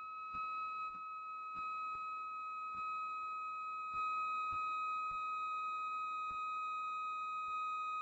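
A steady, high whistle-like tone held at one unchanging pitch, over faint regular drum beats; the tone cuts off suddenly at the end as loud music comes in.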